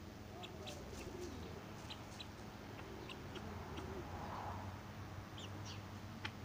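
Faint backyard bird calls: soft low cooing or clucking notes with short high chirps scattered throughout, over a faint steady low hum.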